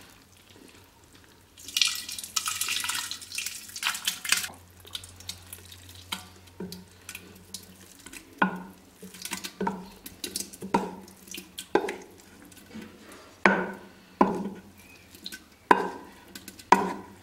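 Thick yogurt sliding out of a steel bowl into a clay pot in a wet rush about two seconds in, then a spoon scraping and knocking against the bowl to clear it, in short strokes about once a second.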